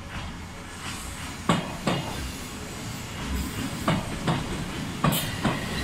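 Odakyu 8000 series electric train passing, its wheels knocking over rail joints in pairs of sharp clacks as each bogie crosses, over a steady running rumble.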